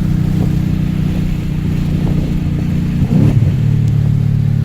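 Ford Mustang GT's 5.0 Coyote V8 running through an SVE Stage 2 cat-back exhaust with the X-pipe resonator deleted, heard from inside the car under way with a deep, steady note. About three seconds in the note breaks briefly and settles a little lower.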